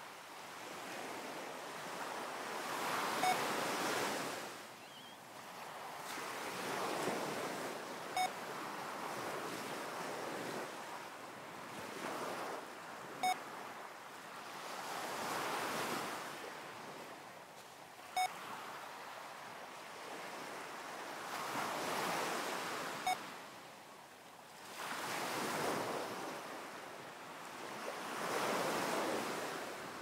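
Ocean waves surging and washing back in slow swells, with a short electronic beep five times, about five seconds apart. The beeps are pacing cues for six-breaths-a-minute coherence breathing, marking each switch between breathing in and breathing out.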